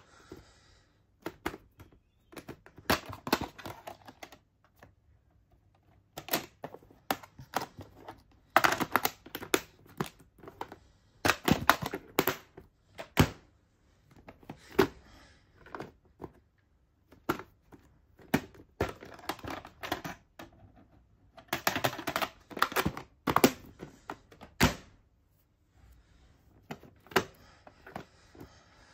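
Plastic VHS clamshell cases clacking and rattling as they are picked up, handled and set down: irregular clicks and knocks in short clusters with quiet gaps between.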